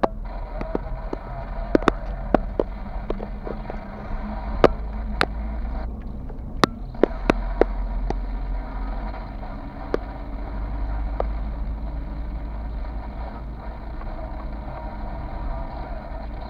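A car being driven, heard from inside the cabin: a steady low engine and road rumble. Sharp clicks and ticks, most of them in the first half, are likely from the car's interior rattling or the dashcam mount knocking.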